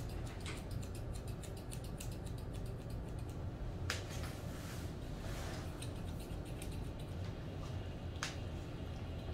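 Grooming scissors snipping the fur around a dog's face. A quick run of light snips comes in the first couple of seconds, then single sharper snips about four seconds in and about eight seconds in, over a steady low hum.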